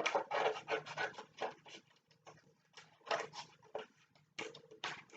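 Scissors cutting through painted paper: a run of short, irregular rasping snips with brief pauses between them.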